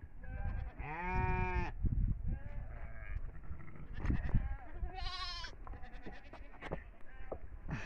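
Sheep and goats bleating: a long wavering bleat about a second in and a higher, shorter one about five seconds in, with a few brief calls between. Scattered light clicks and knocks sound alongside.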